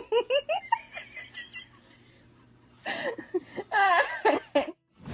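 Someone laughing in high giggles: two runs of short bursts with a pause between.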